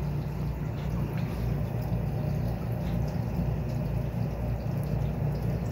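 Aquarium aeration and filtration running: steady bubbling and moving water over a constant low hum.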